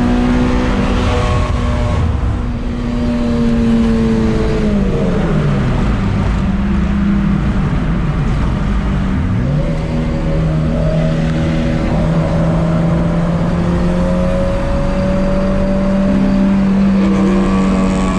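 High-revving Honda four-cylinder engine running hard at steady revs, with road noise. Its pitch drops about five seconds in, climbs again near ten seconds, and then holds steady.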